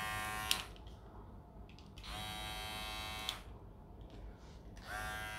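Electric hair clipper buzzing in short runs as it is switched on and off: it cuts off about half a second in, runs again for about a second and a half from the two-second mark, stops with a click, and starts up once more near the end.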